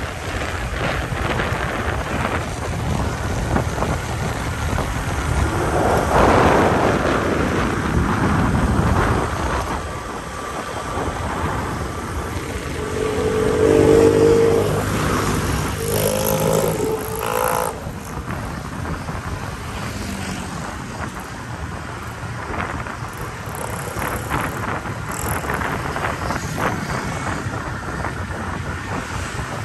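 Street traffic and wind rush heard from a moving motorbike, with another motorbike's engine swelling briefly alongside about halfway through.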